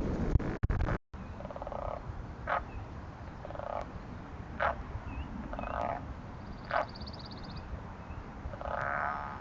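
Frogs calling: short rattling croaks about every two seconds, with sharp clicks between them, over a steady low rumble. A burst of wind noise cuts off about a second in.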